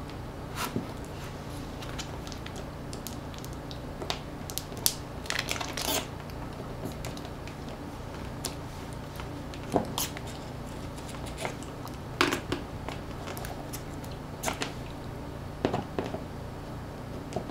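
Small metal pry tool clicking and scraping against a smartphone's insides as a glued-in battery, its pull tabs snapped, is forced out by hand. Irregular short clicks and scratches come over a steady low hum.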